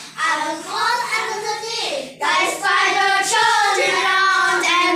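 Children's voices reciting a poem in a sing-song chant, with drawn-out notes and a brief break about two seconds in.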